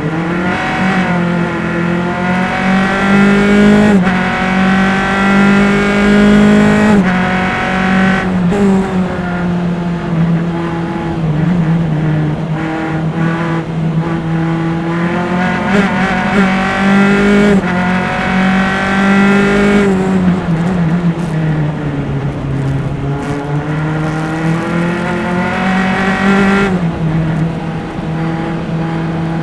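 Single-seater formula race car engine heard onboard at racing speed. Its pitch climbs hard and drops back sharply at each upshift, twice in the first seven seconds. It then falls away for a corner and climbs again, with the longest pull near the end ending in another upshift.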